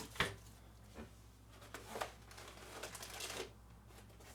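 Handling noise from unpacking a drone's styrofoam case: scattered light clicks and taps, about one a second, with soft rustling between them.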